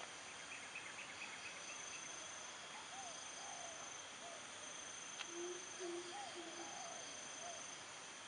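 Insects chirring in a steady, high-pitched chorus, with a short rapid trill about a second in. Soft, faint calls of some other animal come and go, a few low ones among them in the second half, and there is a single click in the middle.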